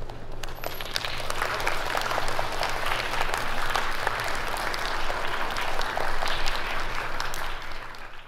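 A group of children applauding, a dense crackle of many hands clapping that begins about half a second in, holds steady and fades out near the end.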